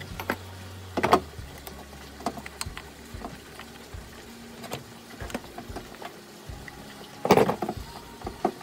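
Clicks, taps and knocks of a washing machine drive motor being handled as its wiring is unplugged and it is lifted out: small plastic-and-metal handling noises, with a louder clatter about a second in and again near the end.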